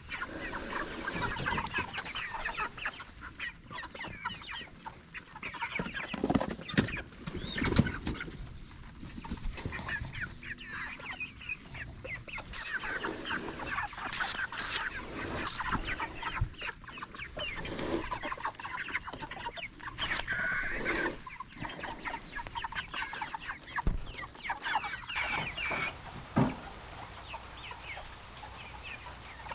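Cornish cross meat chickens clucking and peeping continuously inside a chicken tractor while the wooden pen is dragged over grass, with a few sharp knocks from the frame.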